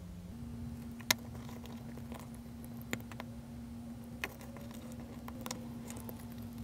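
A few light clicks and taps of hands handling a 3D-printed plastic mold and a soft silicone casting on a tabletop, over a steady hum.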